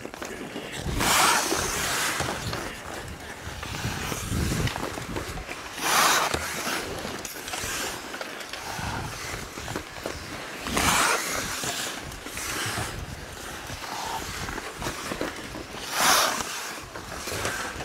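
Hockey skate blades scraping the ice in one-foot snowplow stops: four louder scrapes about five seconds apart, with quieter blade scrapes from skating strides in between.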